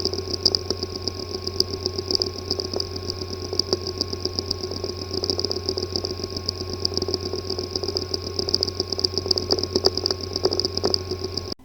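Hard drive with a physically damaged disk assembly running: a steady low hum and high whine, with many small irregular ticks. It cuts off suddenly at the end.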